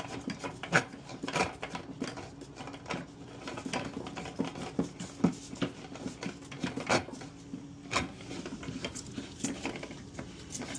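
Irregular clicks, knocks and rattles of plastic toilet-tank parts being handled and twisted as an old fitting is worked loose, over a steady low hum.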